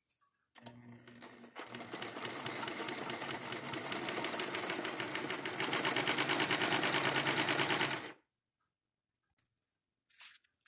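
Vintage Japanese Emdeko sewing machine with an enclosed motor, stitching a straight seam. It starts about half a second in, gathers speed over the next second, and runs with a fast, even ticking of the needle mechanism. It gets louder about two-thirds of the way through, then stops abruptly about eight seconds in.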